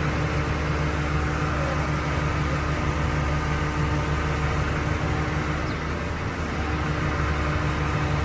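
An engine running steadily at a constant speed: a low, even hum with a few steady tones above it.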